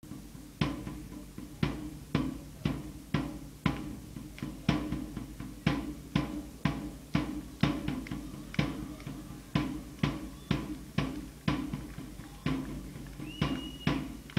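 Supporters' drum beaten in a steady rhythm of about two strokes a second, with the fans chanting underneath. A short high whistle sounds near the end.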